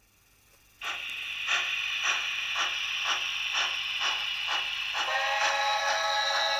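Model steam locomotive's sound module hissing with steam chuffs about twice a second. About five seconds in, a held chord of several steady tones joins.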